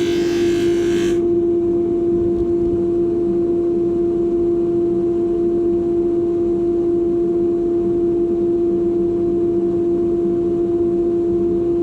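Polishing machine's motor running with a steady hum; the hiss of the knife handle against the polishing wheel stops about a second in, leaving the machine spinning freely.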